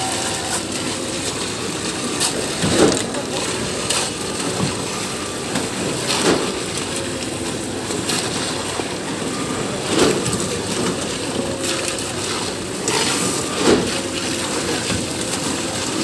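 Truck-mounted concrete boom pump running steadily, wet concrete pushing out of the end hose onto the slab, with a surge about every three and a half seconds as the pump strokes.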